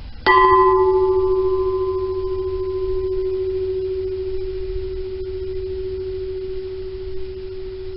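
A large welding cylinder of 1/4-inch-thick steel, hung as a bell, struck once with a baseball on a stick, heard from about 50 feet away. It rings with one steady low tone that lasts for many seconds; its higher overtones die away within a couple of seconds.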